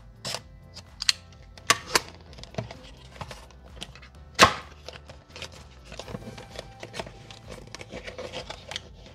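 Small cardboard box being unsealed by hand. First come sharp clicks and scrapes as a small cutter runs along the seal, with a loud snap about four and a half seconds in. Then paper peels and card rustles as the seal sticker comes off and the end flap opens, over faint background music.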